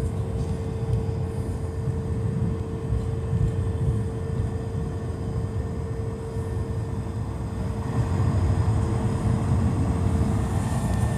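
Cabin noise of an Airbus A220 rolling along the runway after touchdown: a low rumble with a steady hum throughout, getting louder about eight seconds in.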